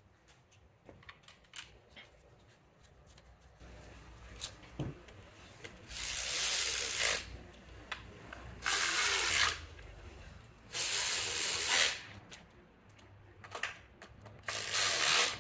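Cordless power ratchet running in four bursts of about a second each, driving in and tightening the four bolts that hold the transmission's servo module. Light clicks and handling noises come before the first burst.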